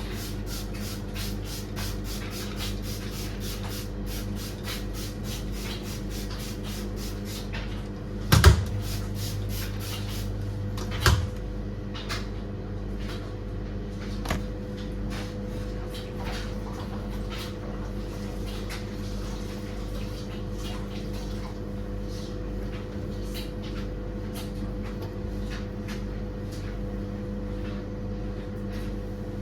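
Trigger spray bottle of disinfectant squirted rapidly, about four squirts a second for several seconds, then more sparsely, over a steady hum. Two loud knocks come about eight and eleven seconds in.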